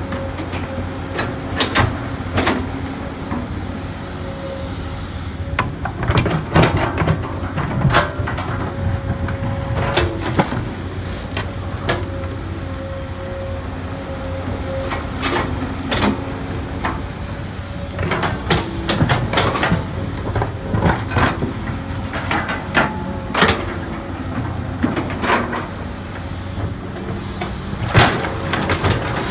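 Komatsu PC200 hydraulic excavator working soil: its diesel engine runs steadily with a high tone that comes and goes, under frequent sharp clanks and knocks from the machine and bucket.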